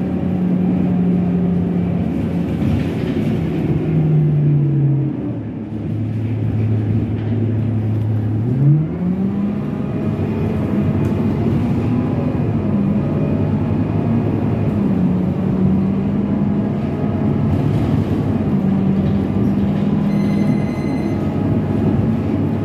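A bus heard from inside while riding: the engine and drivetrain hum at a steady pitch, which drops as the bus slows about four seconds in, then rises quickly as it pulls away again about nine seconds in. A short high beep sounds near the end.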